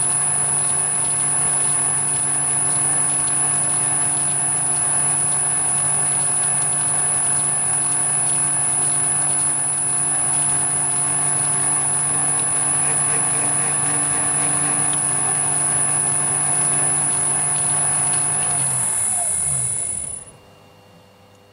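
Metal lathe running steadily with a high whine, its chuck turning an EN16T steel stud blank for single-point thread cutting. About 19 s in it is switched off and the motor winds down, falling in pitch, to a stop.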